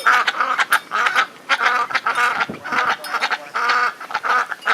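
Pet ducks quacking steadily, a run of short quacks about three a second.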